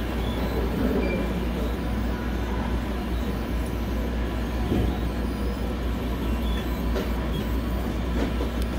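Laser-engraving tag kiosk running with a steady mechanical hum and whir, holding an even level throughout, with a few faint clicks.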